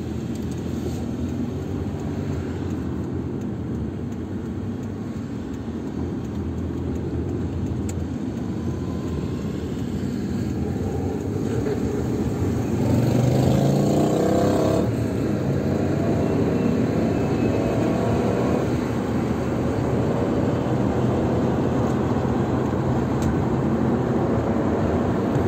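Car engine and road noise heard from inside the cabin while driving, rising in pitch and loudness as the car accelerates about halfway through, then running steadily at speed.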